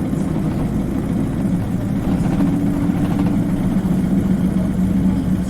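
Isuzu Cubic KC-LV380N city bus engine running as the bus travels, heard from inside the passenger cabin: a steady hum, with a brief higher tone joining about two seconds in.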